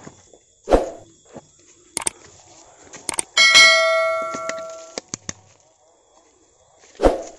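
Subscribe-button sound effect: a few sharp clicks, then a bell ding that rings out and fades over about a second and a half. Two dull thumps, one about a second in and one near the end.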